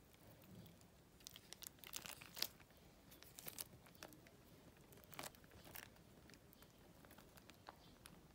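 Wet sheet face mask being unfolded and peeled from its dotted plastic liner: faint crinkling and crackling of the thin plastic, thickest between about one and two and a half seconds in, with scattered crackles after.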